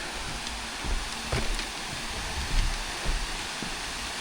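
Steady rushing of a mountain creek waterfall, with a few irregular low rumbles and faint knocks mixed in.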